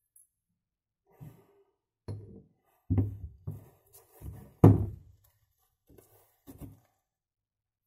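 Glass bottles knocking and being set down on a wooden work surface: a series of dull thunks, the loudest a little past halfway.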